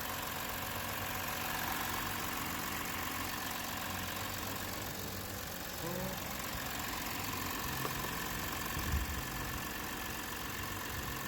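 An engine idling steadily, with a low thump about nine seconds in.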